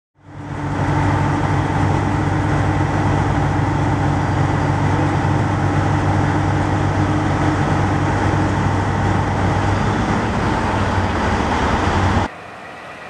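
Tugboat diesel engines running hard under load, a steady drone mixed with churning propeller wash, as the tugs push against the aircraft carrier's hull. It fades in at the start and stops abruptly near the end.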